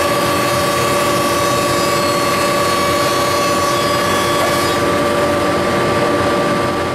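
Ultra 225 double-sided planer running, its top and bottom cutter heads giving a loud, steady machine noise with a constant high whine.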